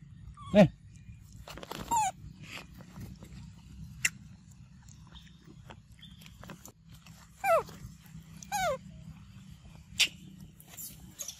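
Macaques giving about four short, high-pitched calls that each fall in pitch, with a couple of sharp clicks in between.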